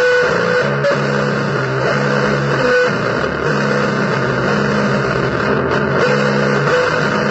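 Harsh noise music: a loud, dense wall of distorted noise with a low pitched drone that repeats, cutting in and out about once a second.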